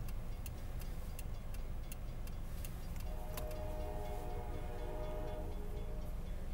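Railroad crossing bell dinging about two to three times a second as the gates come down, over a low rumble. From about three seconds in, the approaching CSX train's locomotive horn sounds one held chord for about two and a half seconds.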